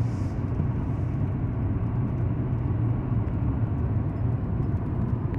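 Truck driving along a highway, heard from inside the cab: a steady low rumble of engine and road noise.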